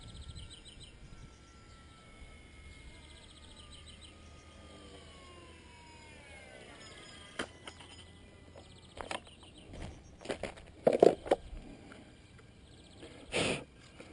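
A small electric RC helicopter's motor and rotor whine, falling steadily in pitch over several seconds as it slows. It is followed by a series of sharp knocks and thuds, loudest in the second half.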